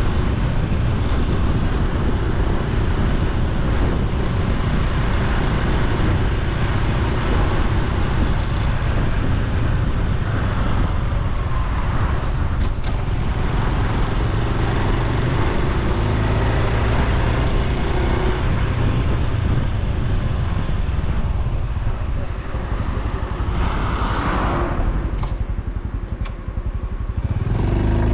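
Honda Super Cub C125's 125 cc air-cooled single-cylinder engine and exhaust running as the bike is ridden. The engine sound drops for a few seconds near the end.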